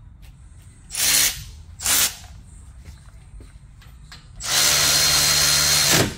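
Cordless ratchet spinning a socket to run in brake caliper bolts: two short bursts, then a steady run of about a second and a half that stops abruptly.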